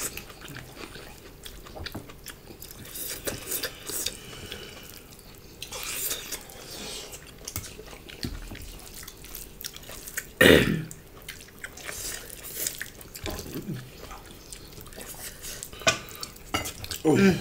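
Close-up wet chewing, lip-smacking and small mouth clicks of people eating rice and curry with their hands. About ten seconds in there is one brief, louder vocal sound.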